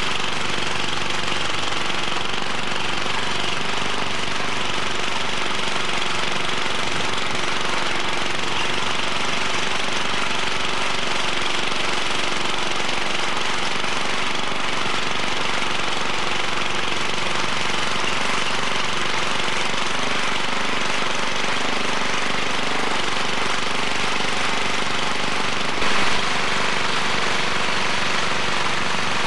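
Small engine of a walk-behind tiller running steadily under load, with a brief jump in loudness near the end.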